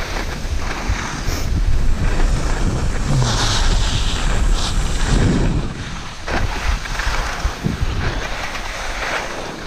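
Wind rushing over the microphone of a skier's camera while skiing downhill, with skis hissing and scraping over the packed snow; the hiss brightens for a couple of seconds a few seconds in.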